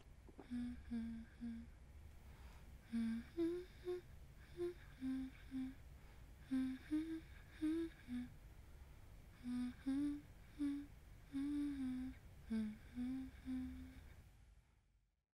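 A woman softly humming a slow lullaby-like tune to a baby, a few sustained notes at a time with short pauses between phrases. The humming fades out near the end.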